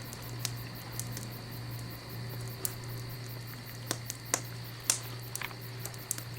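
Irregular pops and crackles of a log fire, played from a fireplace video on a TV, over a steady low hum.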